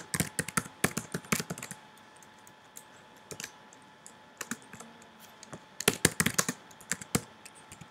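Typing on a computer keyboard in bursts: a quick run of keystrokes at the start, a few scattered keys in the middle, and another quick run about six seconds in.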